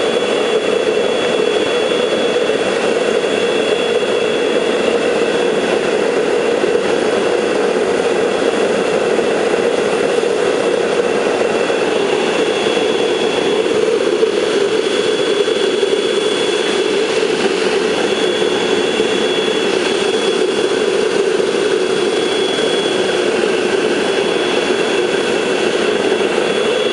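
Homemade gas forge running with a vacuum cleaner as its air blower: a steady, even rushing noise of burner and blower, with a faint high whine that comes and goes.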